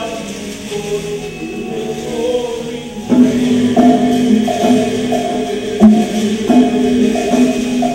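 Live musical-theatre song: singers holding sustained notes over accompaniment. About three seconds in, the music turns louder and rhythmic, with a repeating pulse and sharp percussion hits.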